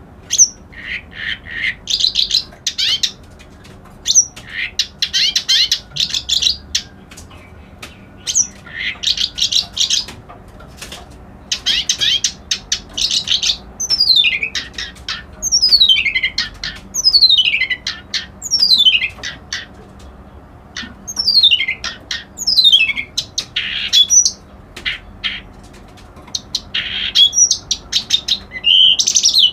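A kerak basi alis putih (a reed warbler) singing. It gives loud, rapid, harsh chattering phrases, and in the middle stretch a run of quick falling notes, each phrase separated by short pauses.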